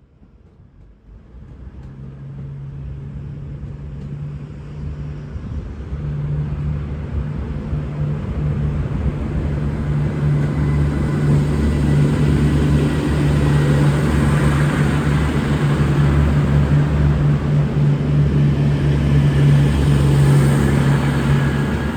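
V/Line VLocity diesel railcar's engines running under power as the train pulls out, a steady low hum with rumble that grows louder over the first ten seconds or so as it draws near, then holds.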